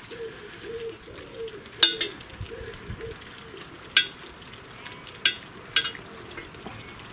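Four sharp clicks and taps spread over several seconds, from hand tools and fittings as the fuel pipe is worked off an old stationary engine's carburettor. A bird sings a quick run of about six falling whistles in the first two seconds.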